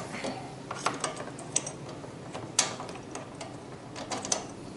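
Spark plug socket wrench working the spark plug loose from the Honda GCV190 engine: irregular metallic clicks and small metal taps, one sharper click about halfway through.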